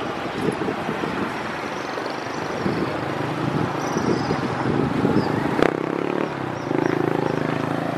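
Motorcycle engines running as the bikes ride across the level crossing over the rails, with a sharp click about five and a half seconds in. A steady engine drone comes up and gets louder near the end.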